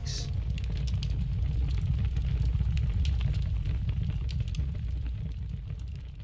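A deep, steady rumble with scattered crackles, fading out near the end.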